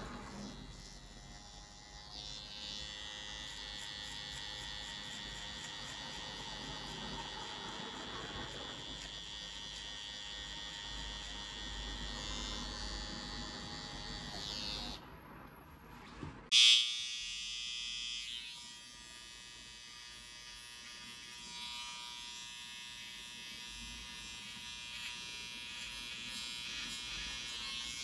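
Cordless hair trimmer (Andis Slimline GTX detailer) buzzing steadily as it cuts hair at the neckline and around the ear. A little past halfway there is one sharp, loud knock, after which the trimmer's buzz sounds different.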